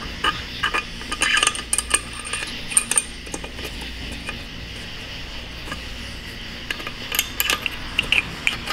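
Light metallic clicks and clinks of small 4L60 transmission valve-body parts, a shift valve and its spring, being handled and fitted. The clinks come in scattered bunches in the first three seconds and again near the end.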